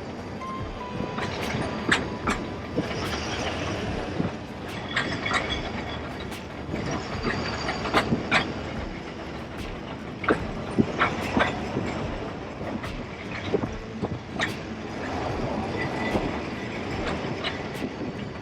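Great Orme cable-hauled tramcar running on its rails: a steady rumble and rattle with irregular clanks and knocks, and a few brief high wheel squeals.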